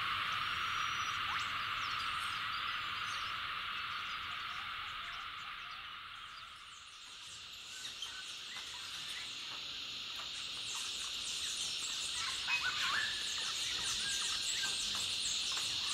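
Dense frog chorus, a steady trilling wash that fades out about six seconds in. It gives way to a steady high hum with many short bird chirps and whistles.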